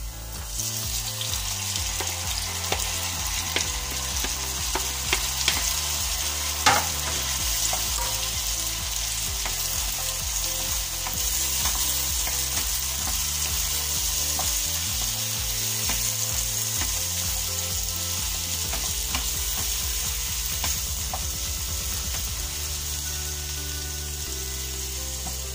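Chopped tomatoes sizzling in hot oil with fried onions and ginger, a steady hiss that starts about half a second in as they land in the pan. A wooden spatula stirs them, with scattered scrapes and taps against the pan.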